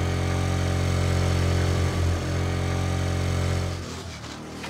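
Motor scooter engine running at a steady pitch, fading out near the end.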